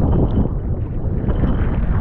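Wind buffeting the microphone over the rush of choppy sea water around a small wooden outrigger fishing canoe. It is a steady, loud noise with no engine note or voice.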